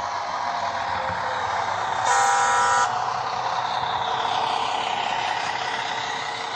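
ZIMO sound decoder in a TT-scale model of a class 842 diesel railcar, playing a steady diesel engine sound through the model's small speaker, with one short horn blast about two seconds in.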